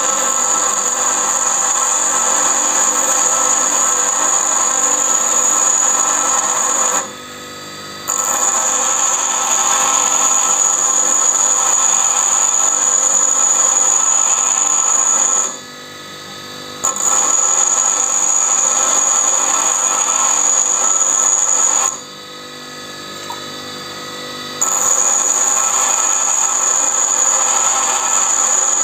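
Bench grinder wheel grinding a steel lathe tool bit, a steady high-pitched grinding whine with sparks flying. The contact breaks off three times, about 7, 15 and 22 seconds in, leaving only the grinder running unloaded for a second or two before the next pass.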